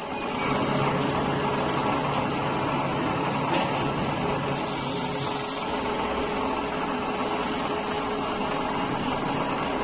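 CNC gantry boring and milling machine milling the teeth of a herringbone gear, a steady mechanical running and cutting noise with a low hum. A brief hiss sounds about five seconds in.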